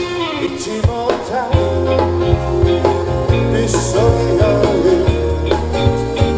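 Live rock band playing: a man sings into a microphone over strummed acoustic guitar, bass and a drum kit, amplified through the stage PA.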